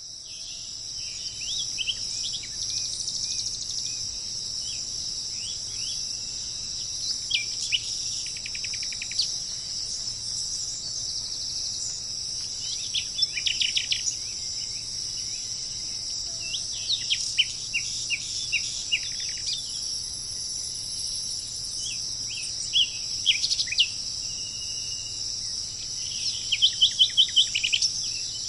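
A steady, high-pitched chorus of crickets or similar insects, with songbirds calling over it in short chirps and quick runs of repeated notes every few seconds; the loudest is a rapid series of about eight notes near the end.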